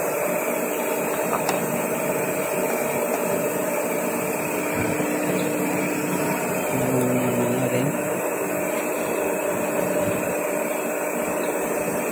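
Pratt & Whitney boring machine running steadily as its boring bar rebores an engine block cylinder: a constant motor hum under an even hiss.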